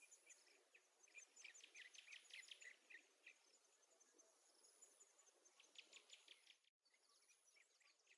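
Near silence, with faint, high chirping in the background coming in quick runs: one about a second in, another around six seconds. The sound cuts out completely for an instant just before seven seconds.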